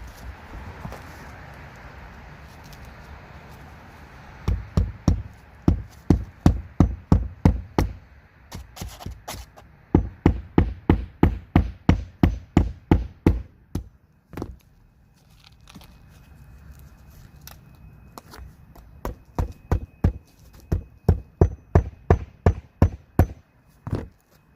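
Hammer driving nails through roll roofing into the garage roof: quick runs of blows, about three to four a second, in three bursts with pauses between, plus a few single strikes.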